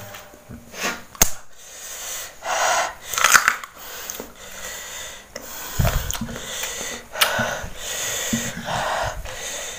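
Biting and chewing raw young cassava root: irregular crunching and mouth noises, with a sharp snap about a second in.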